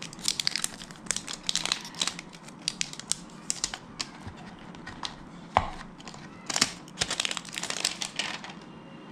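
Thin plastic wrapping being pulled off a new smartphone, crinkling and crackling in bursts, with one sharper knock about five and a half seconds in.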